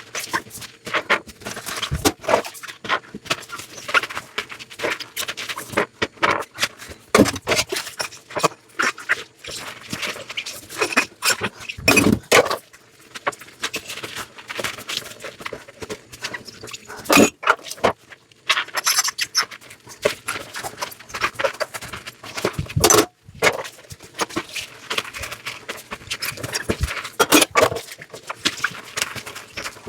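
Dishes being washed by hand: irregular clinks and knocks of dishes and utensils, with scrubbing and scraping in between and a few louder knocks.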